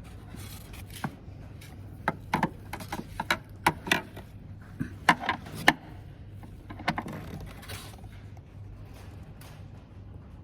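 A series of sharp clicks and knocks of parts and tools being handled while fitting a fridge/freezer water valve, over a steady low hum.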